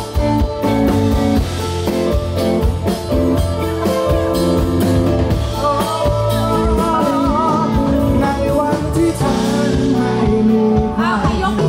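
Band music in a rock style, with drum kit, guitar and a singing voice; a wavering sung line comes in about halfway.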